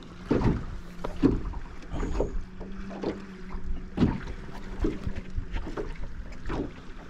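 Irregular knocks and thumps in a boat as a freshly caught fish is handled for measuring, with a steady low hum for a few seconds in the middle.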